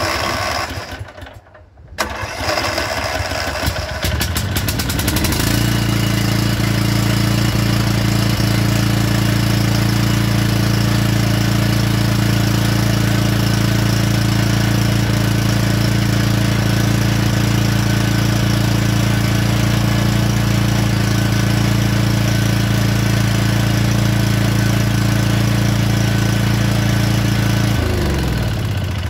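Craftsman T210 riding mower's engine cranking and catching about five seconds in, then running steadily at one speed for some twenty seconds. It is shut off near the end, winding down.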